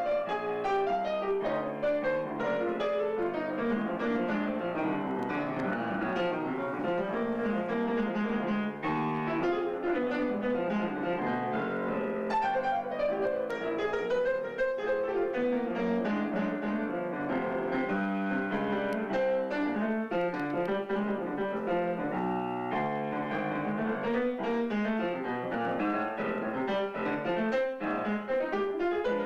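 Solo piano playing a blues piece, with a steady stream of notes and chords throughout.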